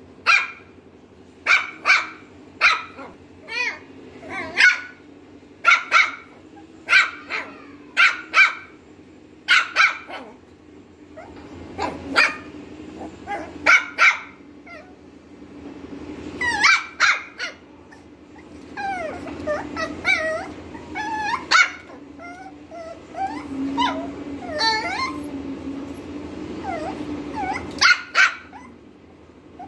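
Lhasa Apso puppy barking over and over: short, sharp barks about once a second in the first half, then more varied, wavering yips in the second half, with one last sharp bark near the end.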